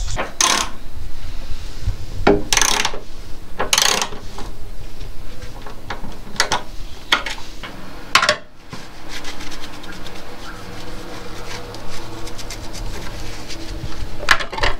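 Irregular metal clinks, knocks and scraping from a socket wrench turning the bolt of a tie-down lashing ring in a VW Crafter's steel load floor, as the ring is unbolted.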